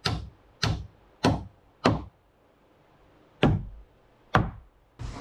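Hammer blows on roof framing: four strikes about two-thirds of a second apart, a pause, then two more. A steady rushing hiss comes in right at the end.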